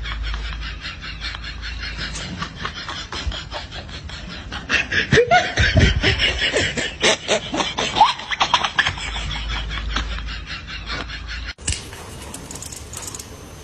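A person laughing in a long run of quick repeated laughs, with a few rising pitched cries in the middle; the laughter stops abruptly near the end.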